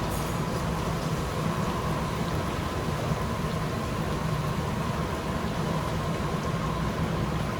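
Breaded chicken pieces sizzling and bubbling in the oil of a commercial deep fryer at 350 degrees, a steady rain-like hiss, over a constant low machine hum.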